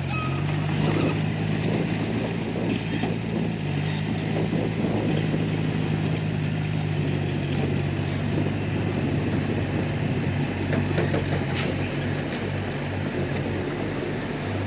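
Komatsu D31P bulldozer's diesel engine running steadily under work, its note shifting slightly a couple of times, with a few sharp metallic clanks.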